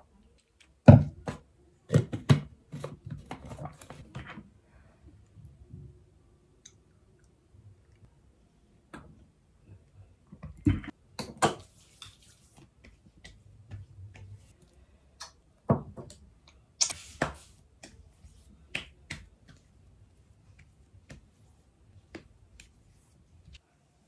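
Scattered sharp taps, clicks and knocks of small objects being handled on a hard surface, loudest about a second and two seconds in. Two brief rustles come about halfway and two-thirds of the way through.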